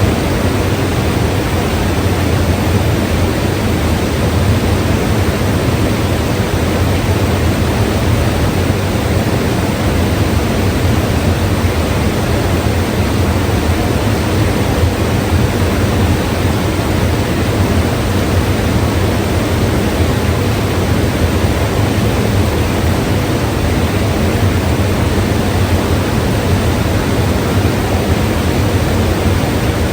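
Mountain river rushing: a loud, steady wash of flowing water with a deep low rumble, unchanging throughout.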